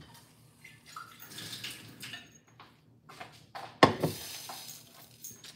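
Tap water running at the kitchen sink as a pot is rinsed. About four seconds in, the pot is set down with a sharp clunk on the glass-ceramic electric hob, followed by a brief hiss.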